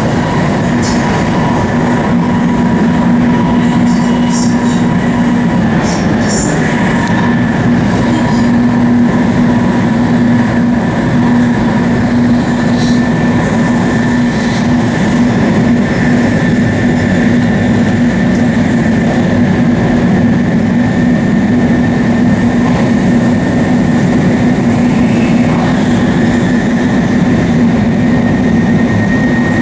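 Shinkansen bullet train running: a steady, unbroken rumble with a constant hum.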